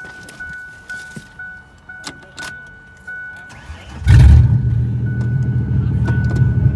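A dashboard warning chime dings a few times a second. About four seconds in, the Ford Explorer's engine cranks, catches suddenly and runs at a loud, steady idle.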